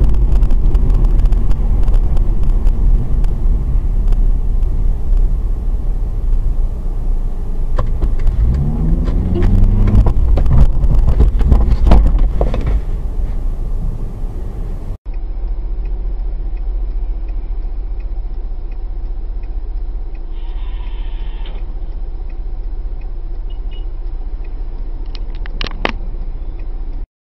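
Car engine and road noise heard inside a moving car's cabin, a loud low rumble. About eight seconds in an engine revs up in a rising glide, followed by a cluster of sharp knocks around twelve seconds. At about fifteen seconds the sound cuts abruptly to a quieter, steady cabin drone with a few faint clicks near the end.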